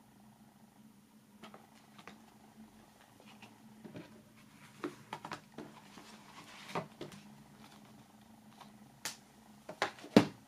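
DVD box-set packaging being handled: scattered taps, clicks and rustles of cardboard and plastic disc trays, the loudest knock coming near the end, over a faint steady hum.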